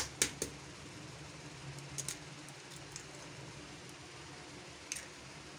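An egg tapped sharply against the rim of a ceramic bowl, three quick taps right at the start cracking the shell, then a few faint clicks as the shell is pulled apart over the bowl. A low steady hum lies underneath.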